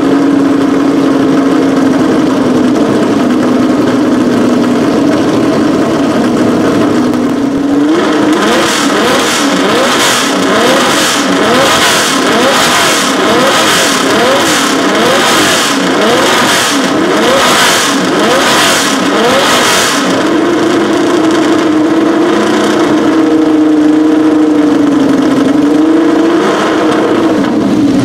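Tecno PA123/3 Formula 1 car's flat-12 engine, stationary and warming up. It idles at first, is blipped sharply about a dozen times in a row through the middle, and then settles back to idle.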